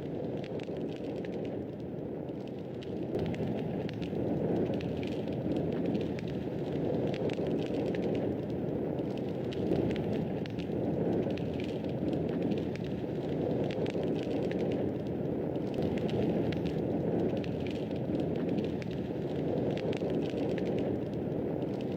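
Fireplace fire burning steadily, a low rushing flame sound with many small irregular crackles and pops from the wood.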